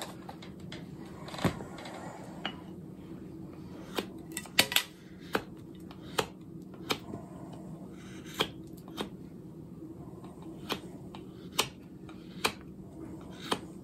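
Mora Kansbol knife carving seasoned ash wood: irregular sharp clicks as the blade cuts through the grain, roughly one a second. A steady low hum runs underneath.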